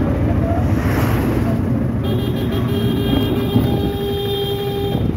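Steady engine and road rumble inside a moving vehicle's cabin. A held, even tone sounds over it from about two seconds in until near the end.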